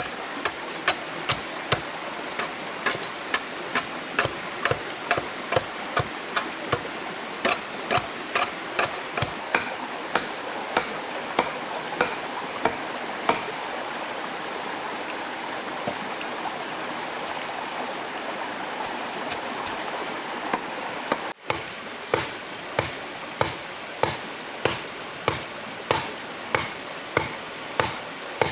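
A hand tool striking in a steady rhythm, about three strikes every two seconds, over the rush of a small stream and a thin, steady high whine. The strikes thin out past the middle, break off at a sudden cut, then start again.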